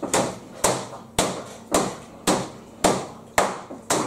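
Biscuits wrapped in a bag being bashed on a chopping board to crush them into crumbs for a pie base: steady, regular knocks, a little under two a second.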